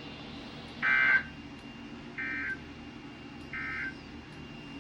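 Emergency Alert System end-of-message data bursts: three short digital tone bursts about 1.3 seconds apart, the first louder than the other two, signalling the end of the alert.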